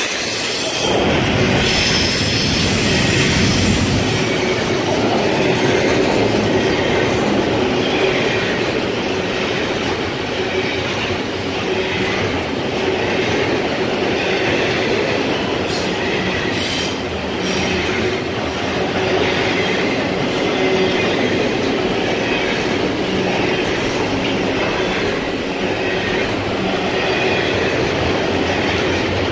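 CSX double-stack intermodal freight train passing close by: a steady rumble and clatter of steel wheels on the rails, with a thin steady wheel squeal over it.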